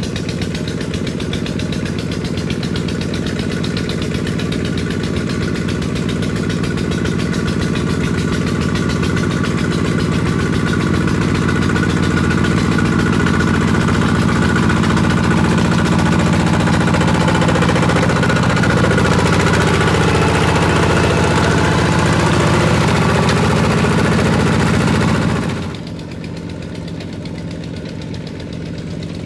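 Two-wheel walking tractor's single-cylinder diesel engine running steadily under load, pulling a plough through wet paddy mud. It grows gradually louder, then drops suddenly to a quieter level near the end.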